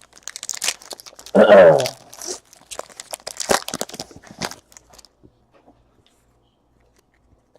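Crinkling and crackling of plastic as trading cards are handled, in dense rapid bursts that stop about five seconds in.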